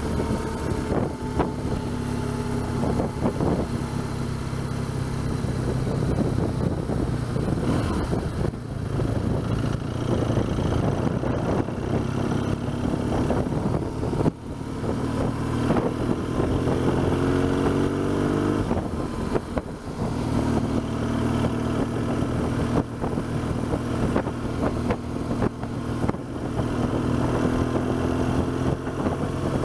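BMW R1200GS boxer-twin engine running under way, its pitch climbing several times as the bike accelerates, with a short drop in level about halfway through. Wind rush on the microphone runs under it.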